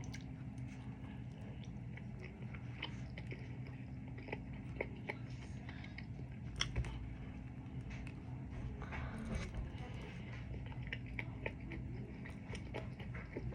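Close-up eating sounds: biting and chewing a taco, with scattered small crunches and wet mouth clicks over a steady low hum.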